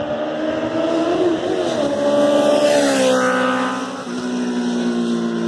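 Honda CBR650F's inline-four engine through a Black Widow oval stainless aftermarket exhaust, baffle (dB killer) fitted, riding past. The engine note rises and grows louder as the bike approaches, drops in pitch as it goes by about three seconds in, then fades as it rides away.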